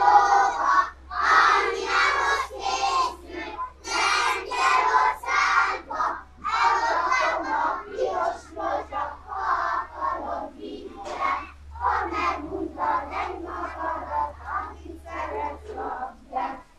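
A group of children's voices singing together in short rhythmic phrases.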